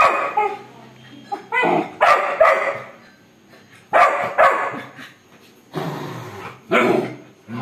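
Labrador retriever puppy barking about six times, mostly in quick pairs about half a second apart.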